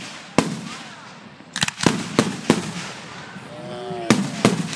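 Aerial firework shells bursting: a sharp bang about half a second in, a quick run of bangs around two seconds in, and two more near the end, each trailing off in an echo.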